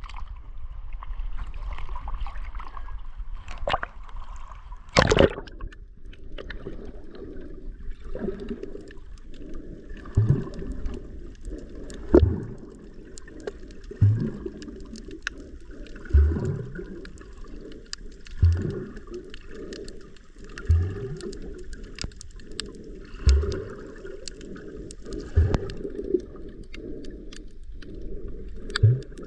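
Sea water splashing against a camera at the surface, then a loud splash about five seconds in as it plunges underwater. After that the sound is muffled underwater noise, with a low whooshing pulse about every two seconds from the swimmer's strokes and faint scattered clicks.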